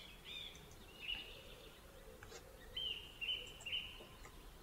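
Faint bird chirps: a few short, high calls over a quiet background, three of them in quick succession about three seconds in.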